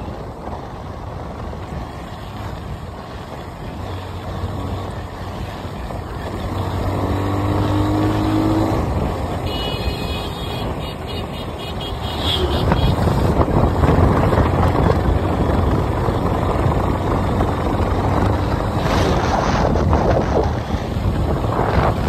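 Motorcycle running along a road with wind rushing over the microphone; about halfway through, an oncoming truck passes close by and the noise grows louder. A rising engine note comes a few seconds before it.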